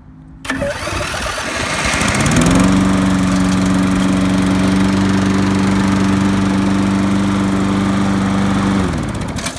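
Snapper rear-wheel-drive mower's Briggs & Stratton engine starting on its electric starter, fed from a jump pack because its battery is dead. It catches about half a second in, rises to speed over the next two seconds, runs steadily, then is shut off near the end and winds down.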